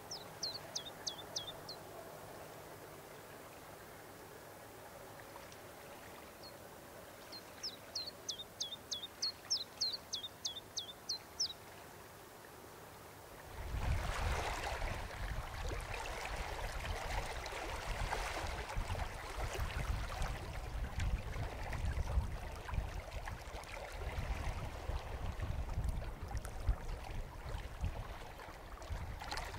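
A songbird sings two runs of rapid, high, repeated chirps, a short run at the start and a longer one about seven seconds in. About halfway through, small lake waves wash and splash over shoreline boulders and pebbles, louder than the birdsong and continuing to the end.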